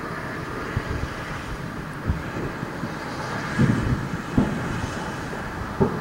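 Fireworks going off at a distance around a neighbourhood: a continuous rumble of far-off explosions with about five louder low booms that echo.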